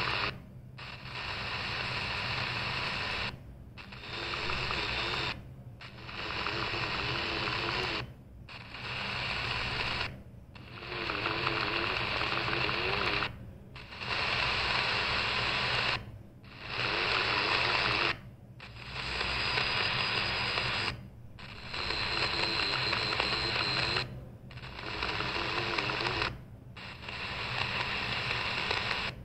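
CS 106 DSP portable radio's speaker hissing with medium-wave static as it is stepped up the AM band one channel at a time, the audio muting briefly at each step, about every two to three seconds. A faint high whistle comes through the noise in a couple of the steps past the middle.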